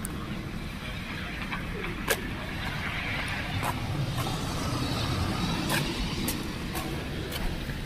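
Outdoor urban traffic ambience: a low rumble with a car passing, swelling and fading through the middle, and a few scattered sharp clicks.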